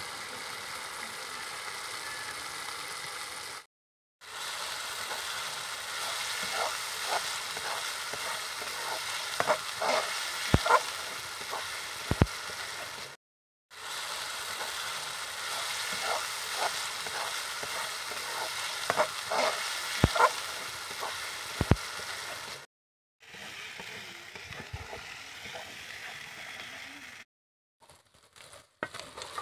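Onion and spice masala sizzling steadily as it fries in oil in a metal kadai, stirred with a metal spatula that scrapes and clicks against the pan several times. The sizzle breaks off briefly a few times.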